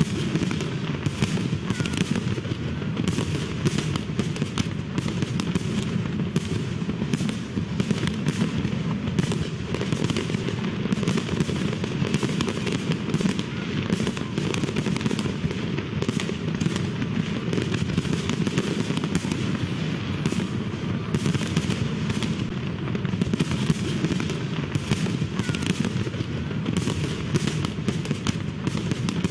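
Fireworks sound effect: aerial bomb fireworks going off in a dense, unbroken crackle of sharp pops at a steady level.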